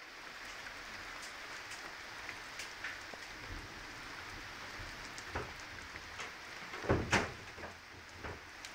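Heavy rain falling steadily during a thunderstorm, with scattered sharp taps and a couple of louder knocks about seven seconds in.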